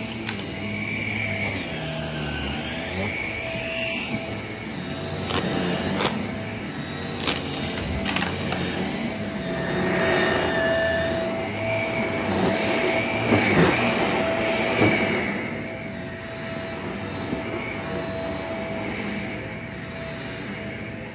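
Shark cordless stick vacuum running over a thick shag rug, its motor whine wavering up and down in pitch as it is pushed back and forth. A few sharp clicks come in the first half.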